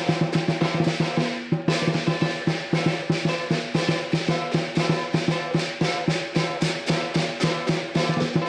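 Southern lion dance percussion: the big lion drum beaten in a fast, steady rhythm of about four to five strokes a second, with cymbals and gong clashing in time and ringing on. The beat breaks off briefly about one and a half seconds in, then picks up again.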